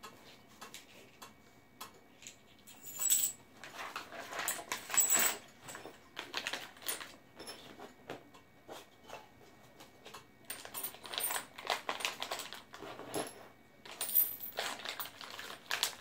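Packaging rustling and small metal bike parts clinking as they are unpacked by hand from a cardboard box, in irregular bursts of clicks and crackle.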